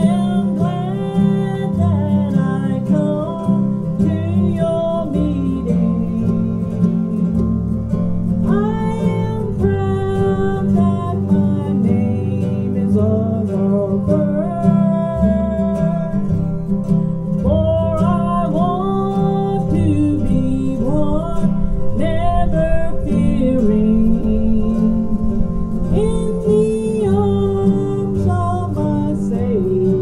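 A woman singing a country gospel song through a PA, backed by an acoustic band of acoustic guitar and upright bass.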